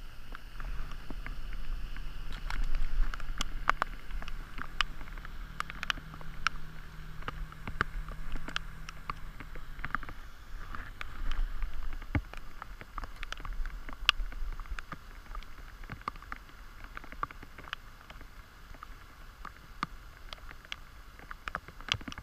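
Wind rumbling on the microphone and a steady hiss, with many scattered light clicks and ticks. A faint low hum and most of the rumble stop about ten seconds in.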